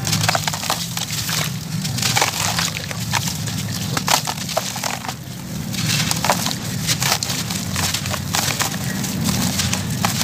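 Dry sand-cement chunks crumbled by hand over a basin of water: a dense, continuous run of crunching and crackling as the chunks break apart and grit falls.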